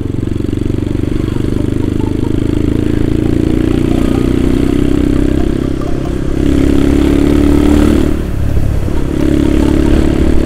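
Yamaha Scorpio's single-cylinder engine running under way, heard from the rider's seat. About six and a half seconds in the engine note rises and gets louder, cuts back briefly about eight seconds in, then picks up again.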